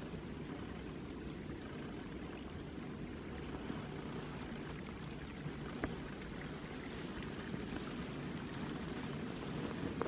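Small stream, still unfrozen in winter, its shallow water running with a steady rushing.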